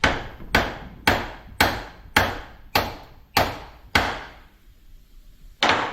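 Hammer blows on the end of a metal pipe: eight steady strikes a little under two a second, each ringing briefly, then one more after a pause.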